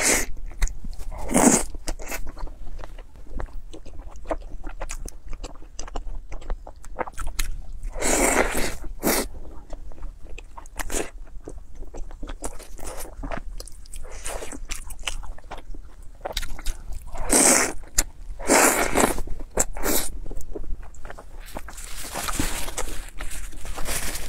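Close-miked eating of saucy fatty beef slices: wet chewing and smacking with many small clicks, broken by several longer, louder slurping sounds as the beef is sucked in.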